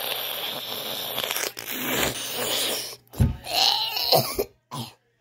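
Long, loud slurping through a drinking straw stuck in a glass bottle, noisy and continuous for about three seconds, then a few short, louder sounds near the end.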